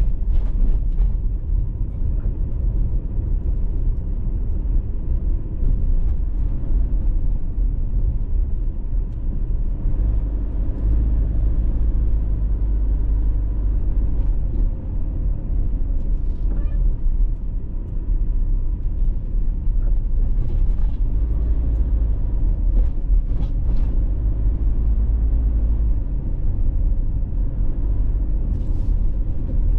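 A car driving: a steady low rumble of road and engine noise, with a few faint ticks in the last third.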